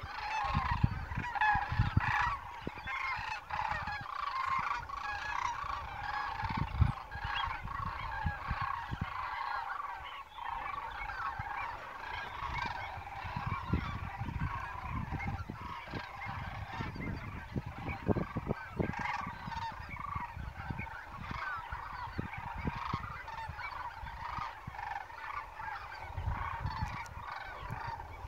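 A large flock of geese honking, many short overlapping calls forming a continuous chorus, with low gusty rumbles of wind underneath.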